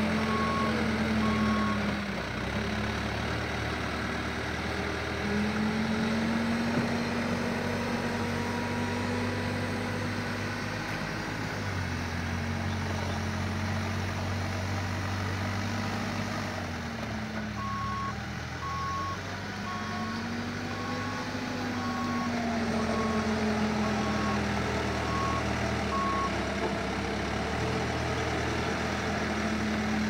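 Heavy construction machinery engines running and revving, their pitch rising and falling several times. A reversing alarm beeps about once a second near the start and again from about 18 to 26 seconds in.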